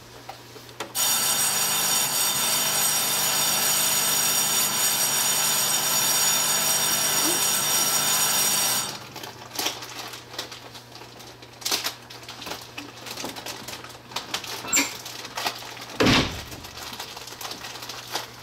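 Station departure bell ringing steadily for about eight seconds, then cutting off suddenly. After it come scattered clicks and knocks and one heavy thud near the end, over a steady low hum.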